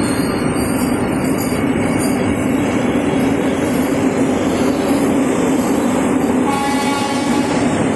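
Vande Bharat Express electric train set running past, a steady rumble of its wheels on the rails. About six and a half seconds in, a short horn sounds for about a second.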